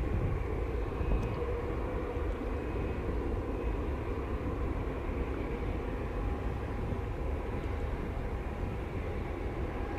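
Spirit Airlines Airbus A321-231's IAE V2500 turbofans at climb power as the jet climbs away after takeoff: a steady jet roar, heavy in the low end, with a faint steady tone over it.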